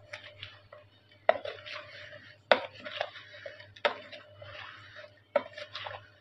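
Spoon knocking against a plastic mixing bowl about four times, with rustling and scraping of raw mango pieces in between, as the pieces are tossed with spices for pickle.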